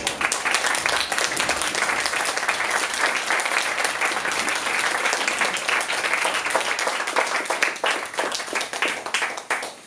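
Audience applause: dense clapping from many hands, thinning to scattered claps near the end and then stopping.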